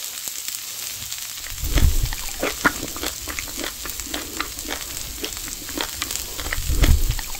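Daechang (beef large intestine) sizzling on a small grill plate, its fat crackling and spitting in quick, irregular pops over a steady hiss. The crackles thicken about a second and a half in. Two low puffs of breath, someone blowing to cool a hot piece, come about two seconds in and again near the end.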